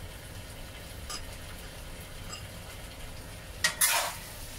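A spatula scraping and stirring through curry beef brisket and potatoes in a wok, a sharp stroke or two near the end, over a low steady background with a couple of faint ticks.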